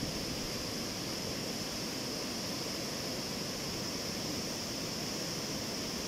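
Flash-flood water rushing over rapids in a forest stream: a steady, unbroken rush of white water.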